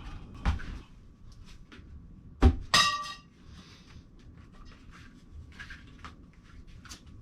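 Metal shelf-frame parts knocking together: a sharp knock about two and a half seconds in, followed at once by a ringing clang, with light clicks and taps around them.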